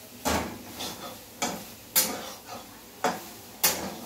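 Metal spatula scraping and knocking against a kadhai while stirring frying soya chunks: five sharp clinks at uneven intervals, each ringing briefly.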